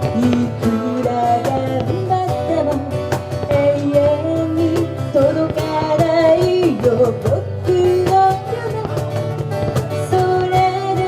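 Live band music: a pop song with strummed acoustic guitar and a sung melody.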